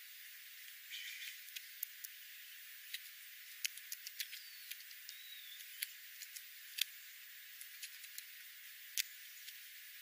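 Scattered sharp clicks and ticks of Steller's and California scrub-jays pecking seed off gravel, over a faint steady hiss. Two faint short chirps come in the middle.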